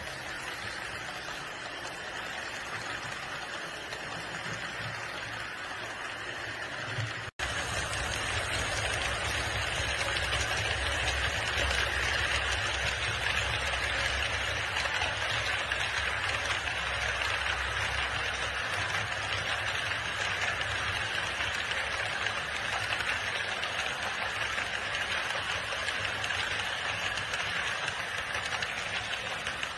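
Model trains rolling along the layout's track: a steady rolling rumble and hiss of wheels and motors. It cuts out for an instant about seven seconds in and comes back slightly louder.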